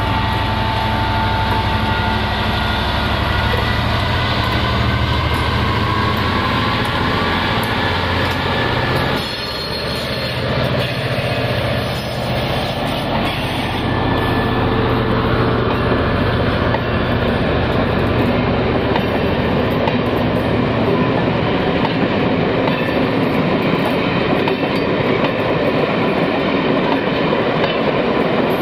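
Class 67 diesel locomotive's two-stroke V12 engine running as it passes close by. About nine seconds in the engine sound falls away, and the coaches behind it roll past with a steady rumble and clatter of wheels on the rails.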